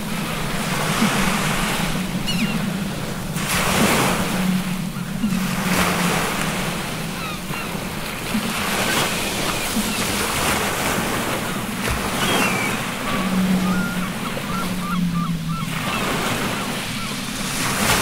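Ocean surf surging and washing in waves over a low steady hum, with faint seagull cries now and then, a quick run of them a little past the middle.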